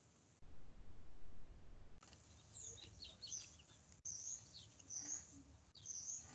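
Faint, quick high-pitched chirps, many of them gliding in pitch, starting about two seconds in over low room noise.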